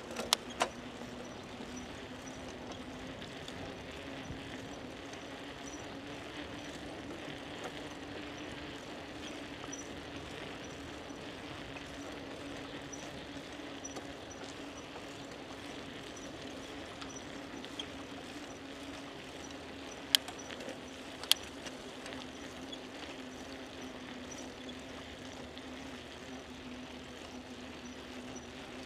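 Steady riding noise of a bicycle on a coastal path: an even hiss of tyres and air with a constant low hum, broken by sharp clicks, two right at the start and two more about twenty seconds in.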